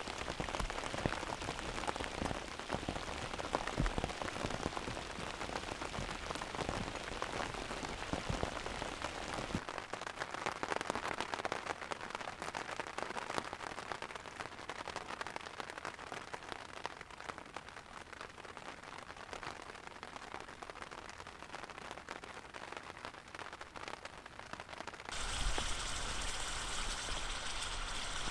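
Steady rain falling on open lake water. About ten seconds in it turns quieter and duller: the rain is heard from inside a canvas tent. Near the end comes a louder sizzle as a fish and potatoes cook in a frying pan over the fire, with the rain still falling.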